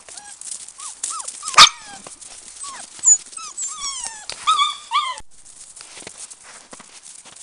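Samoyed puppies yelping and whining as they play-fight: a quick run of short, high squeaky cries, many sliding down in pitch, the loudest a sharp yelp about one and a half seconds in. The cries break off suddenly about five seconds in, leaving soft scuffling of paws on snow.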